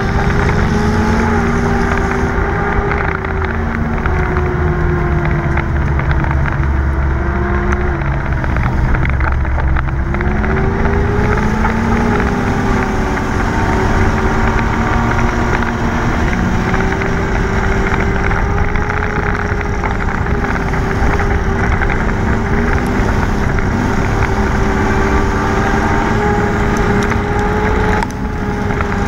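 Dirt-track race car's engine running hard, heard from inside the cabin over rumbling tyre and wind noise, its pitch wavering gently up and down with the throttle through the laps.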